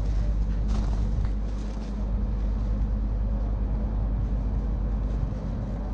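Volvo 460 excavator's diesel engine running with a steady low rumble. A few faint clanks in the first second and a half.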